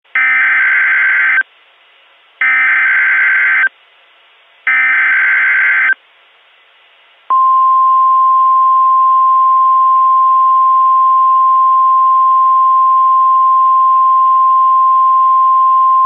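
Emergency Alert System SAME header: three identical warbling digital data bursts, each about a second and a half long, followed about seven seconds in by the steady single 1050 Hz NOAA Weather Radio attention tone, which runs on continuously.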